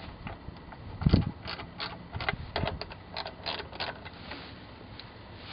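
1/4-inch drive ratchet with an 8mm socket clicking in a quick, uneven run of short ticks as it works the snowblower's housing bolts, with a heavier knock about a second in.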